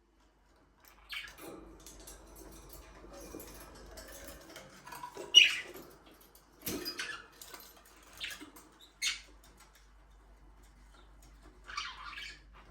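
Budgerigars giving short, sharp chirps, about seven scattered calls with the loudest about five and a half seconds in, over scratchy rustling and pattering in the first half.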